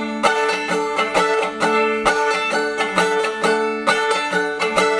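Instrumental bars of a folksy country song: plucked strings picked in a steady, even rhythm, with no singing.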